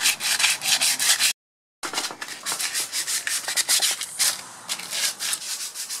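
Hand-sanding a BMX handlebar with a sanding pad: quick back-and-forth scratchy strokes, about five a second, with a short break about a second and a half in.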